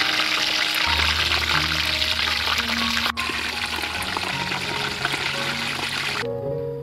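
Battered oyster mushrooms deep-frying in a wok of hot oil: a dense, steady sizzle over background music. The sizzle stops suddenly near the end, leaving only the music.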